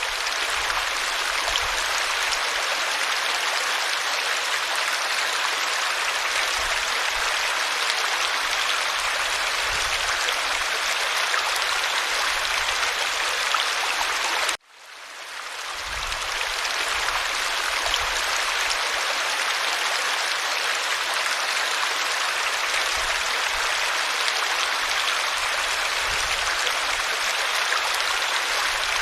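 Stream babbling and rushing as steady running water. About halfway through, the sound cuts out briefly and fades back in over a second.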